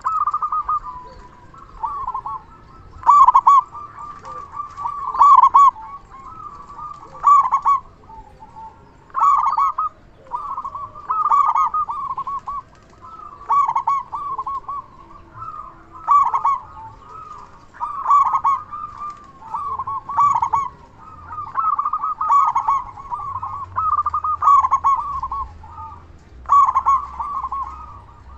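Zebra dove (perkutut) song: a rolling, stuttering coo phrase repeated about every two seconds. This is a local perkutut with a big, full voice, singing steadily in song condition (gacor).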